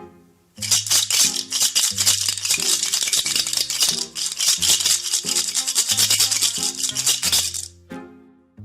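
Maracas shaken rapidly and continuously, a dense rattling hiss that starts about half a second in and stops about a second before the end. A background music track with a low repeating melody plays underneath.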